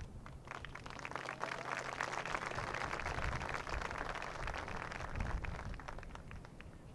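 Scattered applause from a small crowd, building up over the first couple of seconds and dying away near the end.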